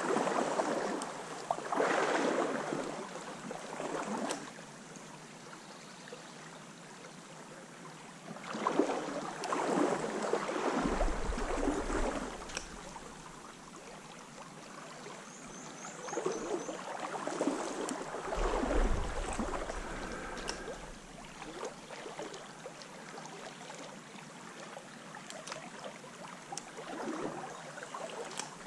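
Water sloshing and splashing in irregular bursts of a few seconds as legs wade through a shallow stream, with the stream's steady flow between. Two of the bursts carry a deeper rumble.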